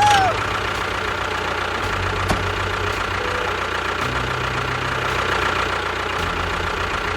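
A small motor running steadily, with a rapid low pulsing that shifts in pitch about every two seconds.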